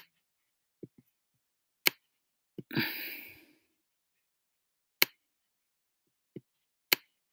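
Sharp clicks of a stylus tapping and writing on a tablet screen, four of them spaced one to three seconds apart, with softer low knocks between them and a short breathy rush about three seconds in.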